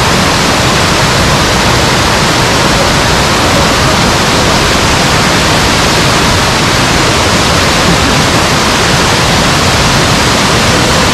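Rushing mountain water close by: a loud, steady, unbroken rush.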